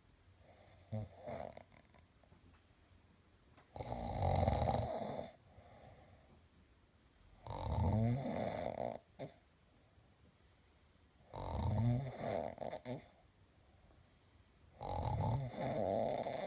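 Snoring of a sleeper: four loud snores, each a little over a second long and coming about every three and a half seconds, with a fainter short snore about a second in.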